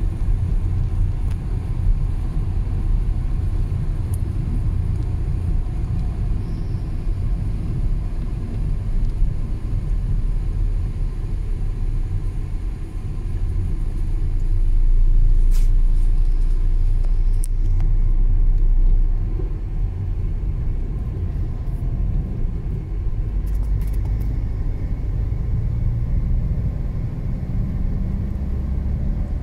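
Steady low rumble of tyre and engine noise heard inside a car's cabin while it is driven on a motorway, swelling a little for a few seconds around the middle, with a few faint clicks.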